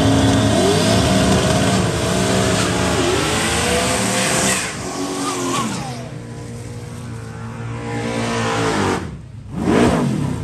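LS V8-swapped Subaru drag car launching down the strip, the engine revving up and dropping back at each of several quick upshifts, then fading with distance. A brief louder swell comes near the end.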